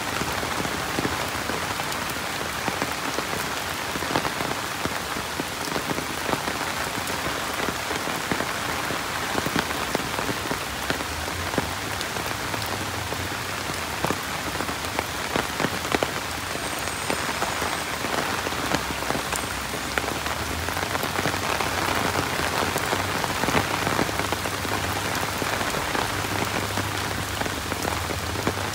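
Steady rain falling, with many separate drops ticking sharply close by over the even hiss of the downpour. A faint low hum comes in under it about a third of the way through.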